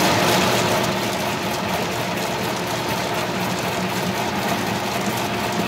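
Açaí pulping machine (batedeira) running steadily while grinding the fruit into pulp, a constant mechanical hum and whir.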